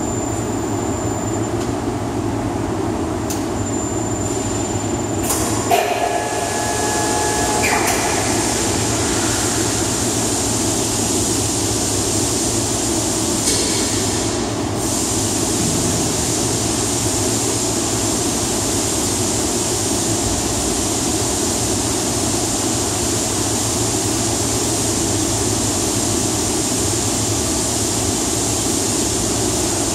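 Overhead crane in a fabrication shop running with a steady mechanical rumble as it holds a steel plate on its chains. A short higher whine with a couple of clicks comes about six seconds in.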